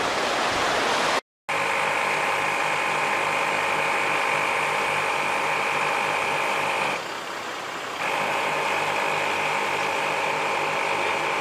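A vehicle engine running steadily, with a held whine and a regular low pulse. The whine drops away for about a second partway through, then comes back. Before it, about a second of even rushing noise like surf cuts off abruptly.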